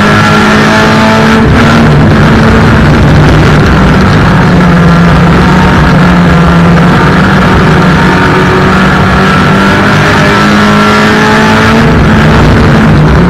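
Race car engines running hard in a heat race, several engine notes overlapping and rising and falling in pitch as the cars accelerate and back off. Very loud.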